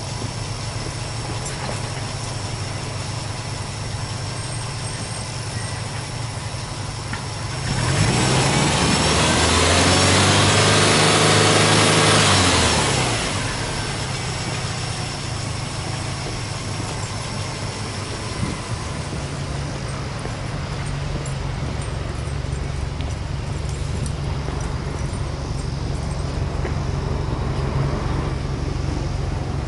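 Subaru Impreza WRX STI S203's turbocharged 2.0-litre flat-four boxer engine idling, then revved once about eight seconds in, held for a few seconds with a rising then falling note, and let drop back to a steady idle.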